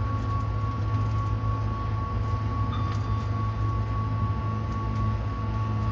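Stadler Citylink Class 399 tram-train running along the track, heard from the driver's cab: a steady low rumble with a constant high whine. A faint clink comes about three seconds in.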